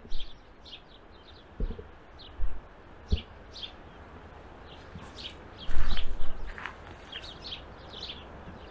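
Small birds chirping, many short high chirps repeated throughout. A few brief low thumps, and a louder low rumble lasting under a second about six seconds in.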